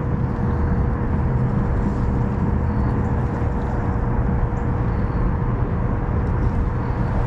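Steady low rumble with a constant even whine running through it, as from a small electric trolling motor pushing a fishing kayak along.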